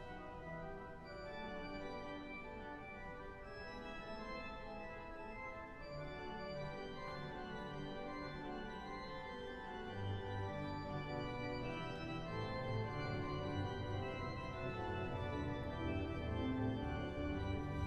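Henry Willis cathedral pipe organ playing sustained chords with a moving melody on the manuals; about ten seconds in, deep pedal bass notes come in and the sound grows louder.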